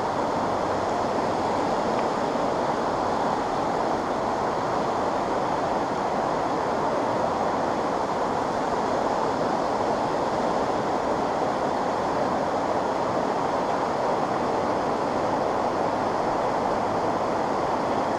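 Swift river current rushing steadily past, a continuous even rush of moving water with no breaks.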